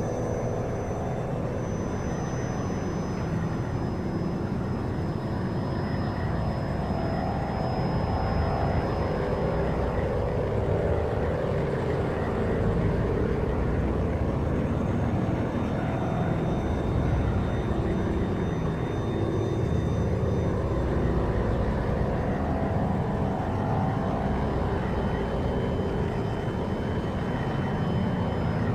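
A steady low rumbling drone with slow swells in the middle range and faint thin high tones drifting in and out.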